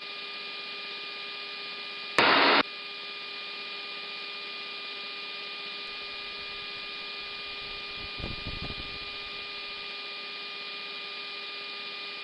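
Open aircraft radio/intercom channel: steady static hiss with a steady hum of several fixed tones, cut off above the channel's narrow bandwidth. About two seconds in, a brief loud burst of static breaks in, like a squelch burst when a transmitter keys.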